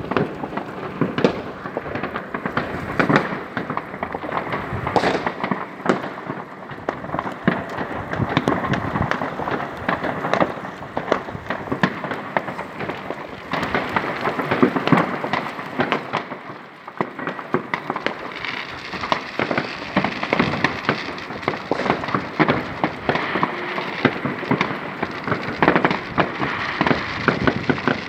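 New Year's Eve fireworks and firecrackers going off without pause: a dense, overlapping mass of bangs and crackling pops, with the crackle turning brighter and hissier from about two-thirds of the way in.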